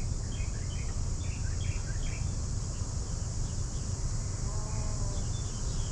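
Outdoor ambience: a steady high insect drone with short bird chirps scattered through it, over a low steady rumble. A brief pitched call sounds about five seconds in.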